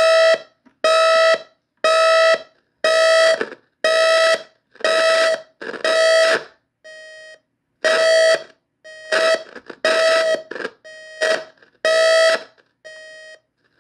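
GE 7-4648B clock radio's electronic alarm sounding through its speaker: a loud buzzing beep repeating about once a second. A few beeps come out much quieter or break up and cut in and out, as the scratchy volume knob makes the level jump.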